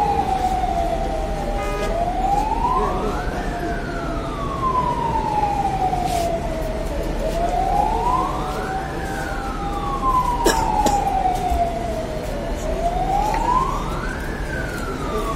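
Fire engine siren wailing slowly: a quick rise, then a long falling glide, three times, about every five and a half seconds, with a second, flatter tone under it. A sharp click about ten seconds in.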